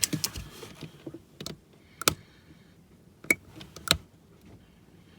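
A handful of sharp, separate clicks and knocks, irregularly spaced, two of them with a brief high ringing tone.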